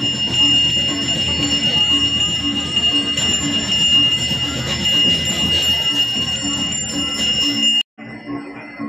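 Balinese ritual handbell (genta) rung continuously, a steady high ringing, with a low pulsing beat underneath at about three a second. The sound cuts off suddenly near the end.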